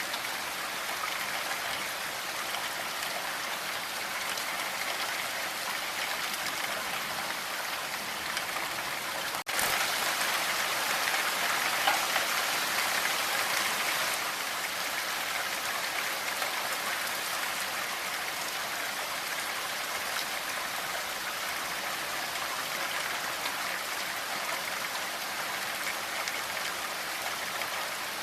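Steady rain falling, an even hiss of drops with no thunder. About nine and a half seconds in there is a brief dropout, and the rain is a little louder for the next few seconds before settling back.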